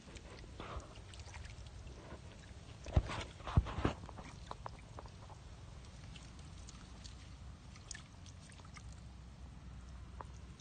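Wet mud and shallow muddy water being disturbed, with a few sharp splashes or slaps about three to four seconds in and scattered small wet clicks, over a low steady rumble.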